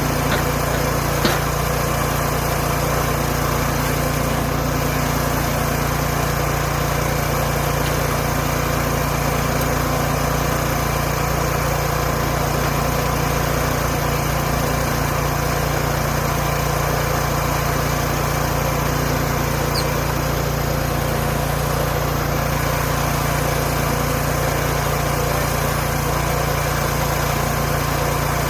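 Small gasoline engine of a Hudson Homesteader 30 portable bandsaw sawmill running steadily at an even speed, with a brief click about a second in.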